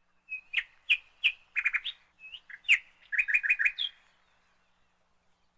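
A bird chirping: a run of short, sharp chirps and quick trills that stops about four seconds in.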